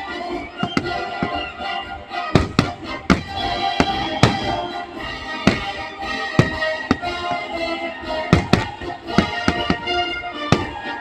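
Fireworks salute: aerial shells bursting in irregular sharp bangs, some close together, over music with sustained tones.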